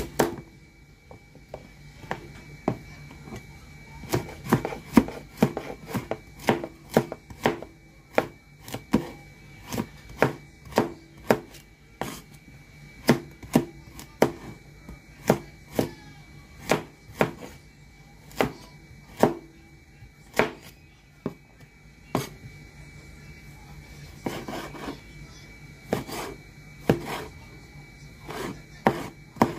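Cleaver chopping carrot and tomato on a wooden cutting board: a long run of sharp knocks of the blade striking the board, about one or two a second, with a few short pauses.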